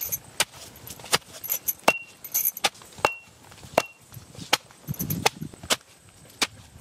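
Traditional hand-turned stone wet grinder (aattukal) grinding cut guava: sharp clacks come about twice a second, some with a short ringing tone after them, and there is a low rumble about five seconds in.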